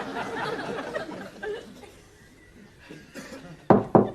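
Chuckling laughter for about a second and a half, then three loud, quick knocks near the end.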